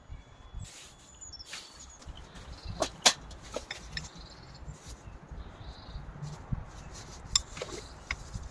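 Scattered small clicks and knocks from hands handling a braided leather cord and antler beads at a metal bench vise, with one sharp click about three seconds in. Faint chirps sound now and then behind them.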